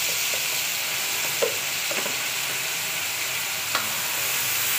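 Wet ginger-garlic-tomato-onion paste sizzling steadily in hot oil in a metal wok as it is stirred with a steel spoon, which knocks against the pan twice.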